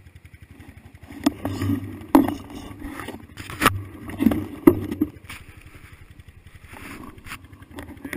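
Honda CRF150 dirt bike's four-stroke single-cylinder engine idling with a few short throttle blips, and several sharp knocks scattered through it.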